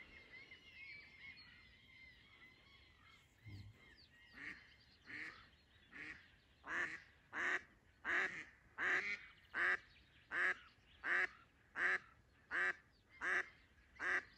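Live decoy duck quacking in a long, even series of about fourteen loud quacks, roughly one and a half a second, starting about four seconds in: the decoy hen calling to draw down passing wild ducks. Faint thin calls of other birds come before it.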